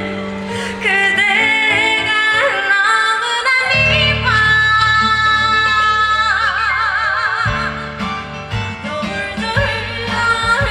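Female trot singer singing live over instrumental accompaniment: a long held note about four seconds in that breaks into a wide vibrato, then the melody moves on.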